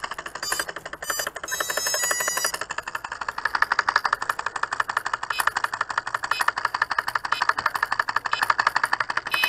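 The rudder actuator of a single-channel pulse-proportional RC model ticking rapidly and steadily as it is driven back and forth by the transmitter's pulses. About one to two and a half seconds in, the electric speed controller gives its short run of initialisation beeps.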